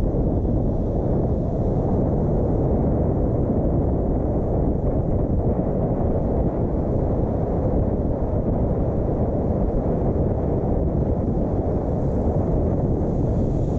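Steady low rumble of road and wind noise from a moving car, even throughout with no distinct events.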